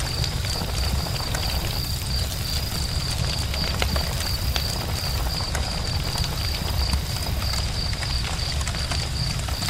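Campfire burning, with scattered sharp crackles and pops over a steady low rumble. A constant high-pitched whine runs underneath.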